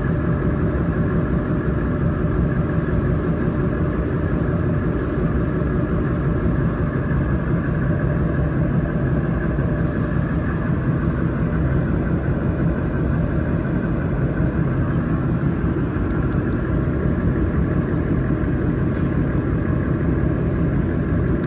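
Steady mechanical hum with fan-like noise from a 50 W fiber laser engraving machine running, unchanging throughout.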